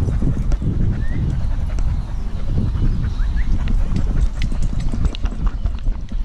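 Dull, uneven thudding and rubbing of a husky's moving gait, picked up by a camera strapped to the dog's back, with the mount jostling against its fur and harness. A few short high chirps sound over it.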